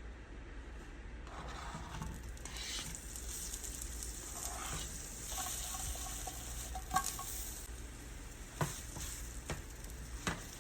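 Maple blueberry chicken sausages sizzling as they fry in a pan, with a few sharp knocks about two-thirds of the way in and near the end.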